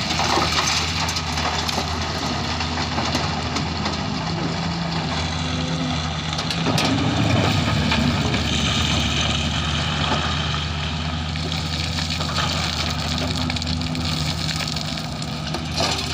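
Excavator's diesel engine running steadily, with a constant low hum and a harsh noisy layer over it, growing louder for a stretch around the middle.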